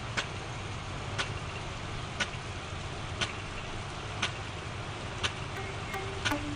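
Big gun rain sprinkler ticking over as it sprays: a sharp click about once a second from its swinging drive arm, over a steady low rumble.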